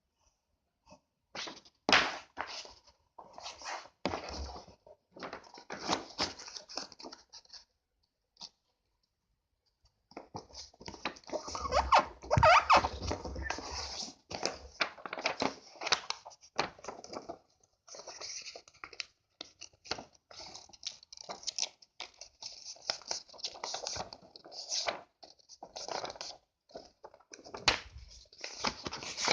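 A sheet of A4 paper rustling and being creased as it is folded into a paper airplane, in irregular bursts with sharp crinkles and a brief pause about eight seconds in.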